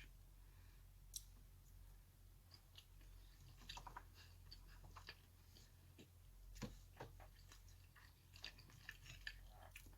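Faint chewing, with scattered small clicks and crunches of food being eaten.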